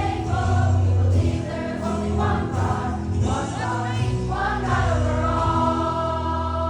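A choir singing with music, closing on a long held chord about five seconds in.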